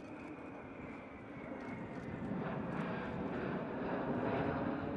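Jet noise from a formation of BAE Hawk jet trainers passing in flight: a steady rush that grows louder about halfway through as the jets draw nearer, with a faint high whine falling in pitch in the first two seconds.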